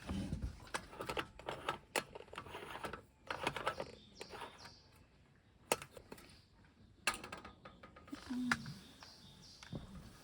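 Irregular clusters of small clicks and rattles with a few sharp knocks, the sound of tableware and food being handled.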